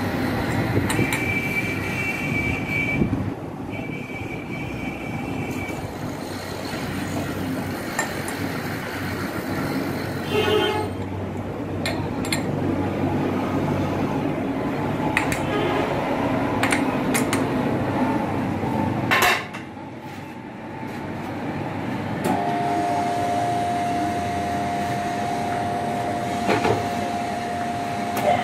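Belt-driven metal lathe running, with a dense, steady mechanical clatter. A high steady whine sounds twice in the first few seconds. There is a sharp knock about two-thirds of the way through, and a steady lower whine sets in near the end.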